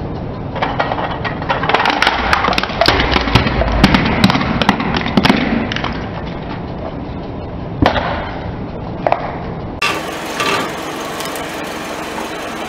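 Car tyre rolling over small plastic toy vehicles and crushing them: a dense run of sharp cracks and crunches of breaking plastic lasting several seconds, then a few single snaps.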